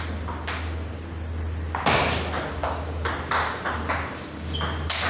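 Table tennis rally: the ball clicking sharply off the rubber paddles and the table, about a dozen hits in quick, uneven succession.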